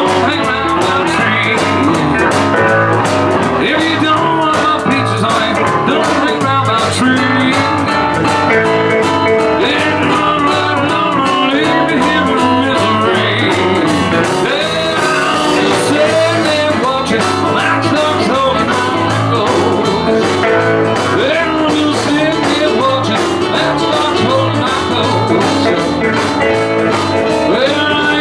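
Live country band playing an up-tempo song: electric guitar, piano-style keyboard and drum kit, with a man singing lead into a microphone.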